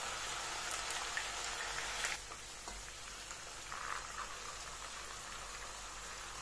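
Potato wedges frying in hot oil in a pan: a steady crackling sizzle. A few light clicks of metal tongs turning the wedges come in the first two seconds, the sharpest just after two seconds in, after which the sizzle is a little quieter.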